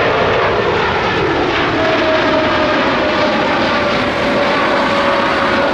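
Jet airliner engines at takeoff and climb power as the plane passes: a loud, steady rush with a whine that slowly falls in pitch.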